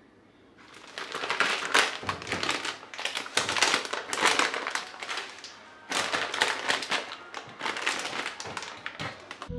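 Plastic packets of dried red chillies crinkling and rustling as they are handled and packed into a perforated plastic basket. It starts about a second in, with a short pause midway.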